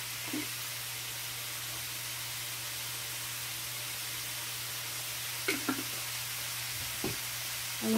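Mixed vegetables sautéing in a stainless steel skillet: a steady soft sizzle over a low steady hum, with a few faint brief knocks.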